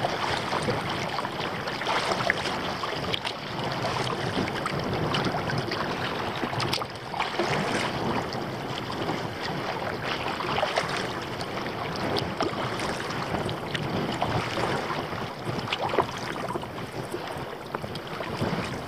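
Water splashing and lapping around a kayak being paddled through choppy water, with small sharp splashes throughout and wind on the microphone.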